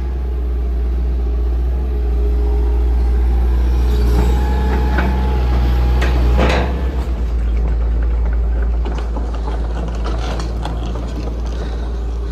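Tractor engine running steadily, with a higher whine held for a couple of seconds around the middle and a sharp clunk about six and a half seconds in.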